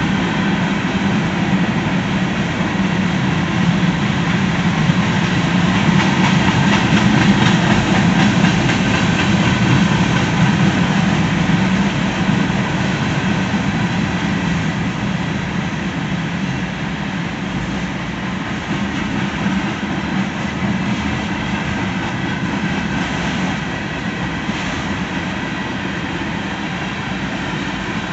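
Freight train cars rolling steadily across a road crossing: a continuous rumble of steel wheels on rail, loudest about six to ten seconds in and easing a little after.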